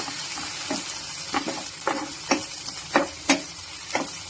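Chopped vegetables sizzling in hot oil in a pan while being stirred, the spatula scraping and knocking against the pan about twice a second.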